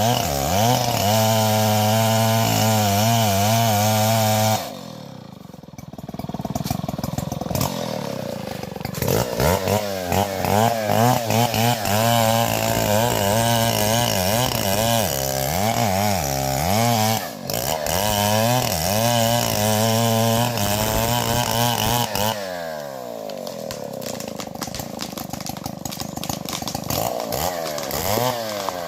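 Stihl 070 chainsaw's big single-cylinder two-stroke engine at steady high revs, dropping back suddenly about four and a half seconds in. It picks up again with a pitch that wavers up and down for several seconds, then settles to lower revs about 22 seconds in.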